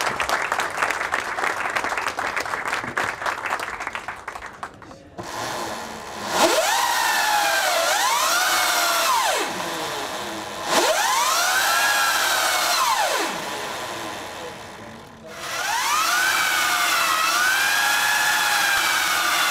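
Applause for the first few seconds. Then the MotoCzysz E1pc electric motorcycle's motor is run up three times with its rear wheel spinning free on a paddock stand. Each time a whine rises in pitch and falls away, and the last one is held high and sinks slowly near the end.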